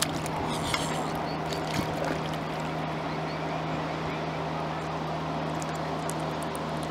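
Steady outdoor background noise with a constant low hum and a few faint clicks; no clear animal calls stand out.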